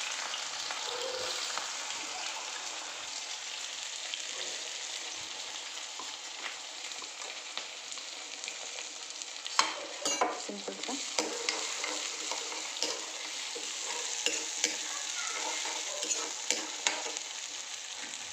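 Chopped onion sizzling in hot oil in a kadhai, a steady hiss. From about halfway in, a steel ladle stirs the onion, scraping and clinking against the pan.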